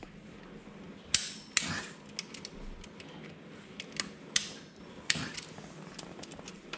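Small torque wrench clicking and ticking against engine-bracket bolts, tightening them to 6 newton-metres; irregular light metal ticks with a handful of sharper clicks.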